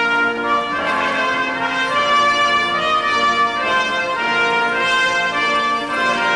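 Brass ensemble playing held chords, with the notes changing about once a second.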